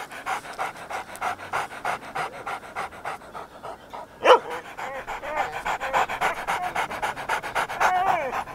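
Fingers snapping in a steady rhythm, about three snaps a second. Just past the middle a short loud gliding vocal sound cuts in, and after it a voice with sliding pitch runs over the snaps.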